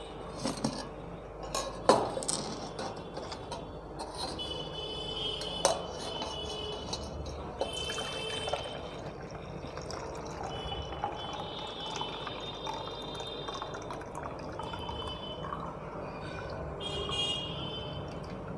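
Brewed black tea poured from a saucepan through a strainer into a stainless steel jug, the liquid trickling and splashing into the jug. A couple of sharp metal clicks come around two seconds and six seconds in.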